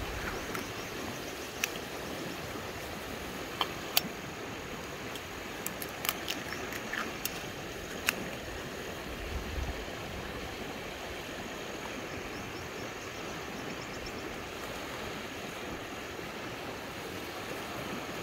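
Steady rush of a flowing river, with a few sharp clicks and taps scattered through the first half.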